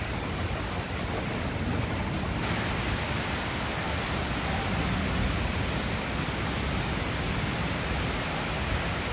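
Steady rain falling, a constant even hiss that turns a little brighter about two seconds in.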